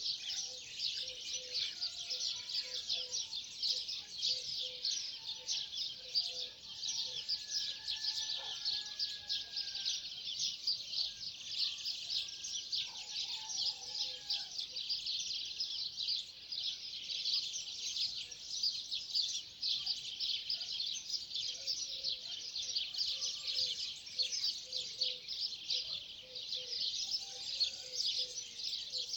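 Many small birds chirping and twittering together in a dense, unbroken chorus, with a few lower whistled calls standing out about a third of the way in.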